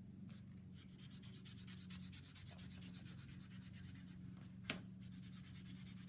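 Felt-tip Sharpie marker scratching across a paper towel in quick short strokes, faint. A single sharp click comes near the end, over a steady low hum.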